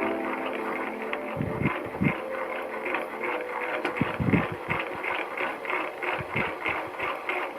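Rapid, even ratchet-like clicking, about three to four clicks a second, from hand work on a Honda Grom engine's bottom end, with a few dull knocks of metal parts.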